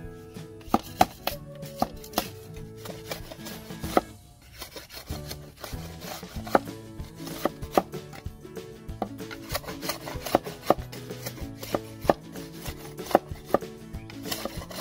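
Sharp, irregular knocks of a machete chopping and splitting bamboo strips against a wooden block, several a second at times, with a short lull about four seconds in. Background music runs underneath.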